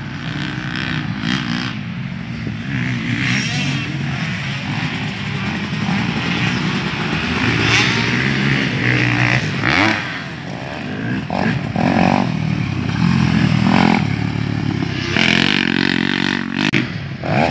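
Motocross dirt bike engines on the track, revving up and down as the riders accelerate and shift gear.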